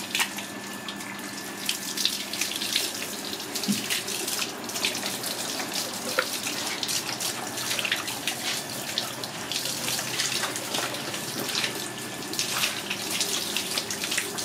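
Water running from a garden hose and splashing over a snake's body into a plastic basin as hands rub it clean, with irregular splashes throughout.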